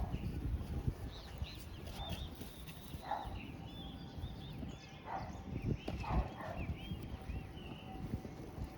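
Strong wind buffeting the microphone in a steady low rumble, with scattered high chirping calls from birds.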